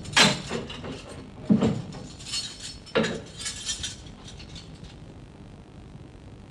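A heavy barred cell door clanking shut, then metal clanks and jingling as of keys and a lock being worked: three knocks about a second and a half apart, with a spell of jingling between the second and third.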